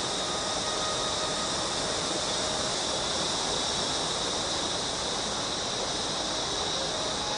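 Steady outdoor ambience: an even hiss with a constant high-pitched band running through it, and a few faint, brief tones.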